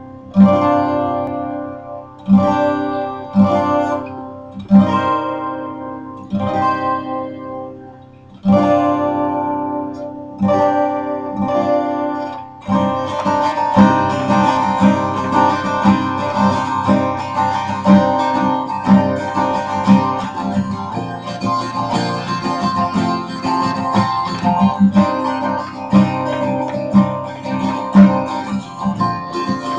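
12-string acoustic guitar played by hand: single chords struck and left to ring out every second or two, then from about halfway a steady, denser strumming pattern.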